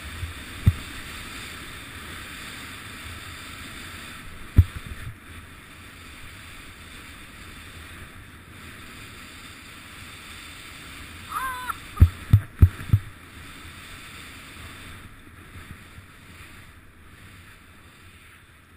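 Skis hissing steadily through powder snow, with wind on the microphone. Sharp low thumps come once early, once about four and a half seconds in, and four in quick succession a little past the middle.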